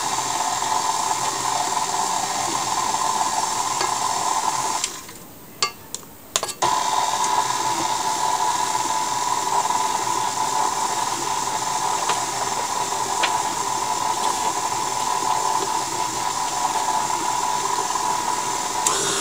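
KitchenAid stand mixer running on low speed, its flat beater churning cold butter cubes with powdered sugar to break up the lumps, a steady motor hum. The sound drops away for about two seconds around five seconds in, with a few clicks, then the mixer runs on.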